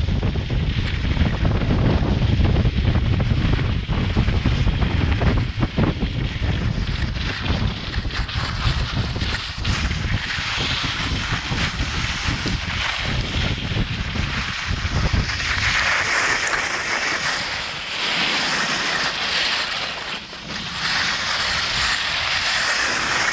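Wind rumbling and buffeting on the action-camera microphone while skiing. About sixteen seconds in the rumble drops away and a steady hiss of skis sliding over snow takes over.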